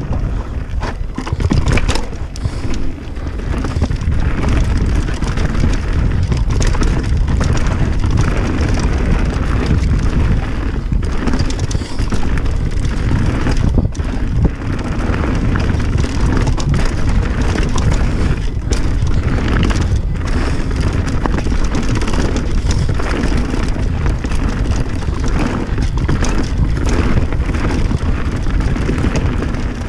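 Pivot Firebird full-suspension mountain bike descending a dirt singletrack at speed: steady wind buffeting on the action camera's microphone and tyre rumble, with frequent knocks and clatters as the bike runs over roots and rocks.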